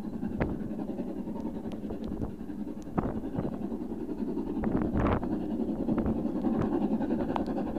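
Distant LMS Jubilee class three-cylinder 4-6-0 steam locomotive working a train, a low steady exhaust sound that grows louder as it approaches, under wind noise and scattered sharp taps.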